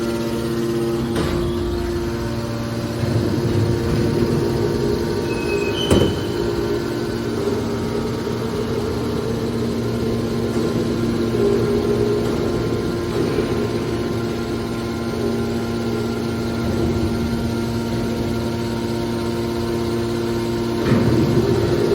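Hydraulic scrap car baler running with a steady machine hum, with a sharp metallic knock about six seconds in and a heavier bump near the end.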